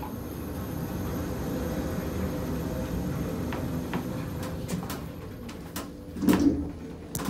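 KONE lift car running down between floors, a steady low hum and rumble of travel. About six seconds in, as it arrives at the floor, there is a brief louder knock, and a click follows near the end.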